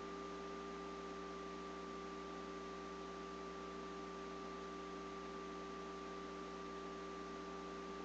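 Steady electrical hum and hiss: several fixed tones, including a high whine, over even static, with no other sound.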